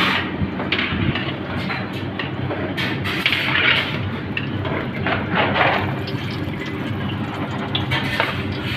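Mesh strainer scraping and clinking against a steel bowl and wok, several times, as fried cashews and raisins are lifted out of hot oil, over a steady kitchen hum.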